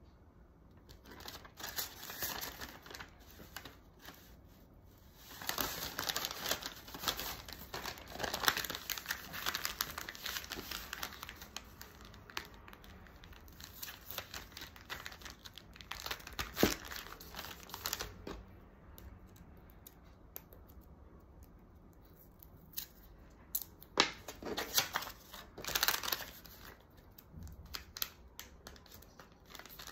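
Kraft paper bag rustling and crinkling as it is handled and folded by hand, in several bursts with a few sharp taps between them.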